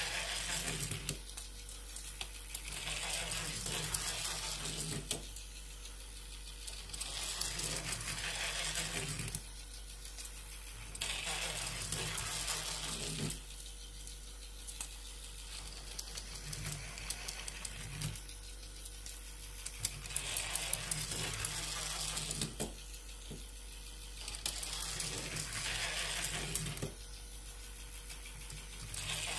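Small toy locomotive running on plastic track: a whirring motor with clicking and rattling from the wheels, louder and quieter in turns about every four seconds.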